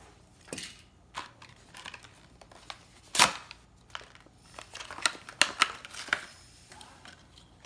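Clear plastic blister pack of a Hot Wheels die-cast car being squeezed and worked by hand: a string of sharp plastic clicks and crackles, the loudest about three seconds in and a quick cluster around five to six seconds.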